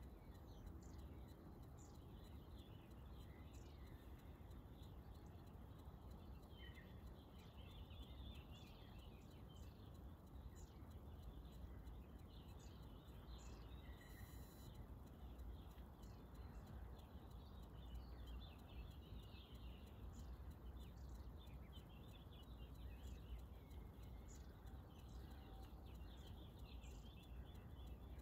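Faint ambience of distant small songbirds chirping on and off, over a low steady rumble.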